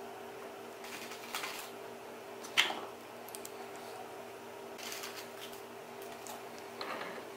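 Handling noises at a workbench as a metal swivel caster and its screws are set in place: light clicks and rustles, with one sharp knock about two and a half seconds in, over a steady low background hum.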